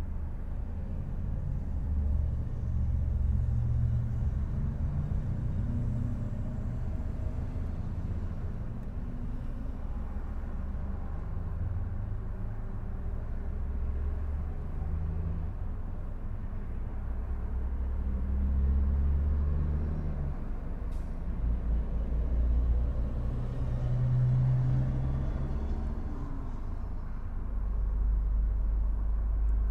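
Car driving: a low engine and road rumble whose pitch rises and falls as the speed changes, with a single sharp click about 21 seconds in.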